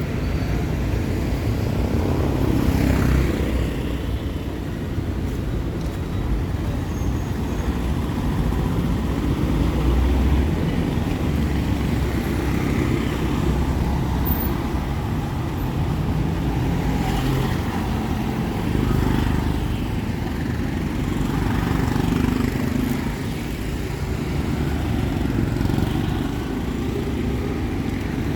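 Street traffic: vehicle engines running and passing in a continuous low rumble that swells and eases as vehicles go by.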